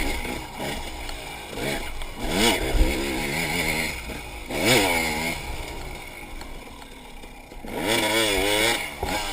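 Enduro dirt bike engine revving up and down in repeated throttle surges, about four of them, the longest and loudest near the end with a wavering pitch.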